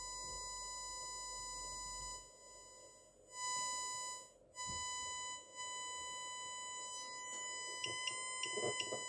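A 1000 Hz test tone from a DDS signal generator, played through a 20-watt audio amplifier and its speaker: a steady, pure beep. Twice it is turned down with the amplifier's volume potentiometer, almost to nothing about two and a half seconds in and again about four and a half seconds in, and each time it comes back up. A few small clicks come near the end.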